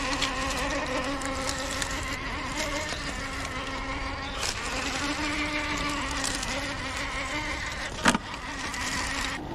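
Electric motor and geared drivetrain of a six-wheeled RC rock crawler whining as it climbs over rocks, the pitch shifting a little with the throttle. A single sharp knock comes about 8 seconds in.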